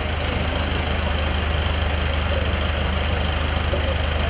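Farm tractor's engine idling steadily with a deep, even hum.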